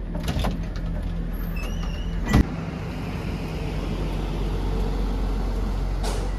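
Bus engine running steadily, heard from inside the cabin, with one sharp knock about two and a half seconds in.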